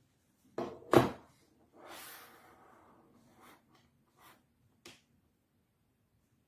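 Two knocks close together, the second the loudest, followed by a short rustle and a few light clicks: objects being handled.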